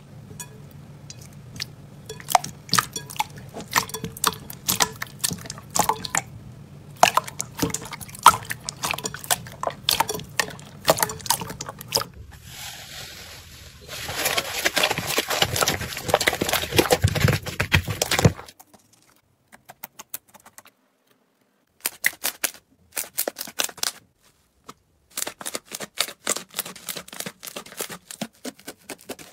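Slime being handled: a steady run of sharp, wet, sticky clicks and pops as the slime is pressed and pulled. About halfway through there are a few seconds of dense crackling, with foamy slime being scraped. After that come sparser clusters of pops as a thick slime is pressed flat with the palms.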